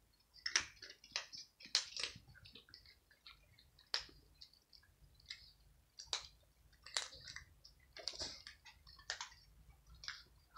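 Several cats crunching dry kibble: many short, irregular crunches and chewing clicks from cats eating together.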